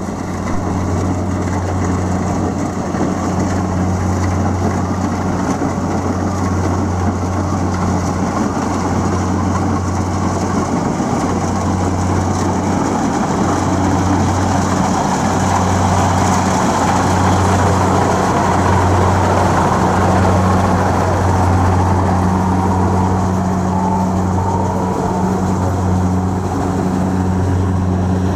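Kubota DC-70 Plus combine harvester running under load in a rice paddy: a steady low diesel drone that pulses slightly, growing a little louder around the middle as the machine comes close.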